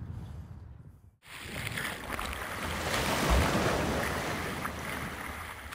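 Rushing, splashing water: a dense wash that starts abruptly about a second in, swells, then slowly fades.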